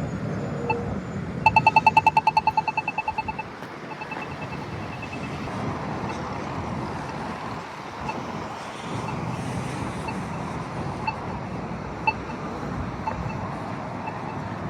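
Polara iNS2 accessible pedestrian push-button signal giving its rapid ticking, about ten ticks a second for a couple of seconds and then fainter, followed by a slow locator tick about once a second. Passing traffic runs underneath.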